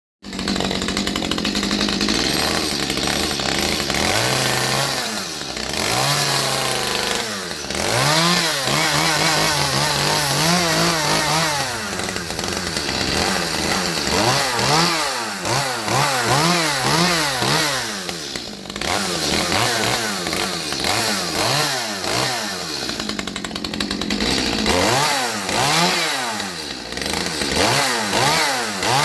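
Chainsaw engine running loudly and being revved up and down over and over, its pitch rising and falling about once a second. It runs more steadily for the first several seconds before the revving starts.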